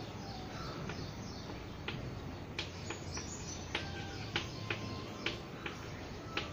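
Chalk tapping and scratching on a blackboard as an equation is written, heard as a string of sharp, irregular ticks. Faint short chirps sound in the background.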